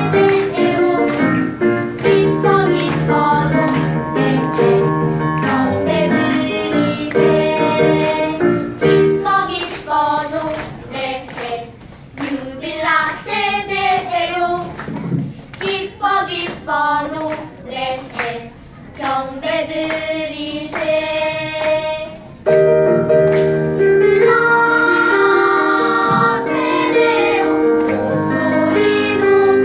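Children's choir singing a Christmas carol over instrumental accompaniment. It is softer for a stretch in the middle and comes back fuller all at once about twenty-two seconds in.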